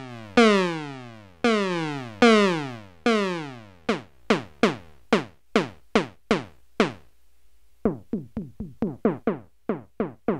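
Behringer 2600 synthesizer playing repeated percussive notes whose pitch drops sharply on each hit: an envelope frequency-modulating the oscillator, the pitch-envelope trick for synth drum and zap sounds. The first few hits ring out longer. After that the decay is shorter and the hits come quicker, about three a second, with a pause of about a second near the middle.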